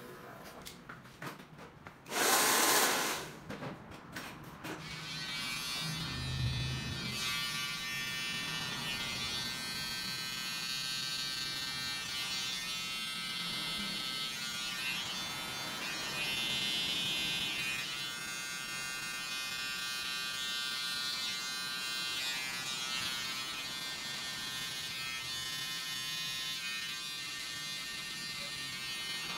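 Cordless electric hair clipper buzzing steadily as it trims the hair, switching on about five seconds in. Before it, a short loud hiss lasting under a second.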